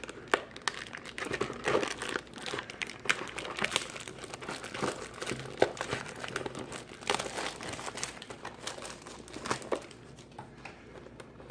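Packaging of a Pokémon trading-card mystery box being torn open by hand: irregular crinkling and tearing with sharp crackles, thinning out near the end.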